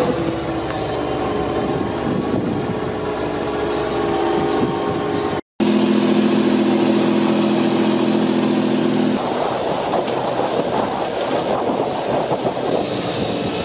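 New Holland T7 tractor engine running steadily under load while it pulls a slurry tanker, with a brief dropout about five seconds in and a strong steady hum after it. From about nine seconds in, the engine gives way to the noisy scraping and rattle of a disc cultivator's discs cutting through soil.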